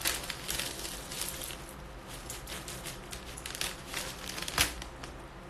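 A wad of banknotes handled and flipped through by hand: paper crinkling with a run of light flicks, one sharper click about four and a half seconds in.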